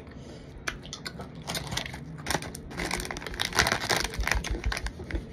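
Plastic chip bag crinkling as it is handled and picked up, with a dense run of crackles that peaks near the end.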